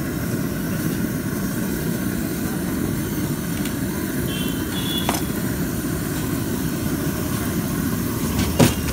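Steady roar of a pressure stove's burner under a flat iron griddle, with a sharp knock near the end.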